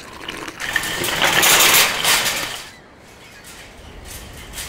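Loud slurping of a drink through a straw: a rasping hiss that swells about a second in and dies away before the halfway point, leaving only faint background noise.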